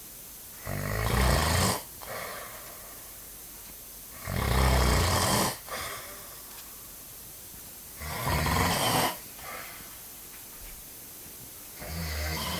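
Heavy snoring: four loud snores, each about a second long and coming about every three and a half to four seconds, each followed by a softer breath.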